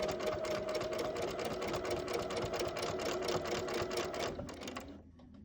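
Bernina 180 Artista sewing machine stitching fast in free-motion quilting, its needle strokes in a rapid, even rhythm over a steady motor hum. It slows and stops about five seconds in.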